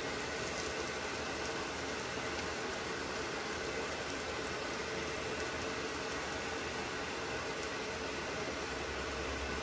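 Uttapam batter of semolina and curd sizzling steadily in ghee on a hot tawa, with a faint steady hum underneath.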